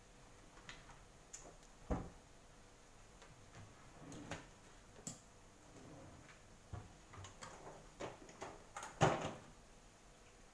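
Scattered light knocks and clatters of kitchen things being handled, the loudest about two seconds in and a cluster near the end.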